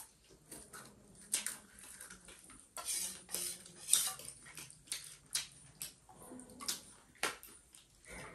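Cutlery clinking and scraping on dishes: a run of irregular sharp taps, about a dozen and a half, with a few longer scrapes in between.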